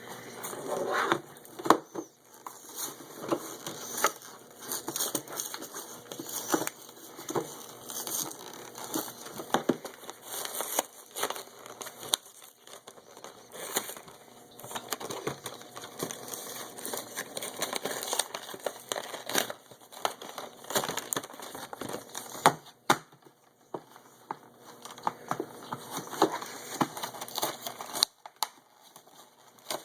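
Toy packaging being opened by hand: irregular crinkling and crackling of plastic and cardboard, with sharp clicks and rustles and a few short pauses.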